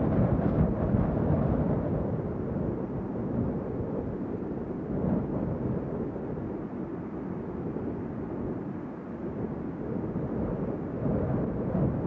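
Strong wind blowing in gusts, a low, deep rush that slowly eases off past the middle and builds again near the end.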